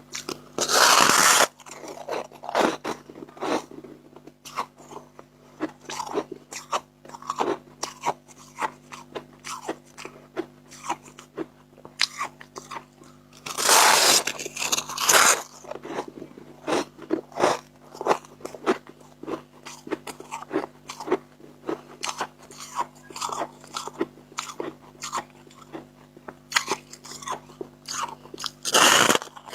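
Dry freezer frost chunks being bitten and chewed, a quick run of crisp crunches. Louder, longer crunches come about a second in, midway through, and near the end.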